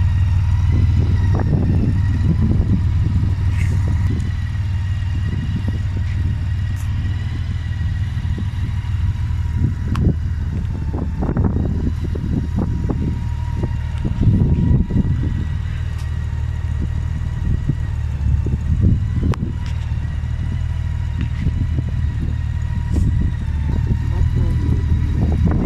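Motorcycle engine idling steadily, a low even hum, with a faint steady whine above it. Brief distant voices come in around the middle.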